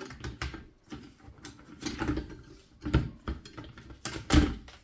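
Plastic washing machine door trims and parts being pulled apart and handled: a string of clicks, clacks and knocks, the loudest knock a little after four seconds in.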